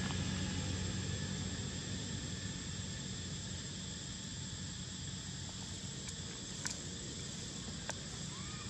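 Outdoor forest ambience: a steady high insect drone over a low rumble that fades during the first few seconds, with a few faint clicks in the second half.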